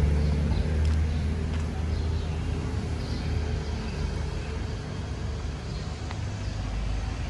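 Low, steady engine hum of road traffic, a motor vehicle running, that slowly fades over the first few seconds.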